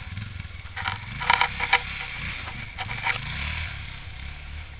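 Honda Dominator motorcycle's single-cylinder engine revving up and down as the bike pulls away through deep snow, with a few short bursts of hissing noise about a second in.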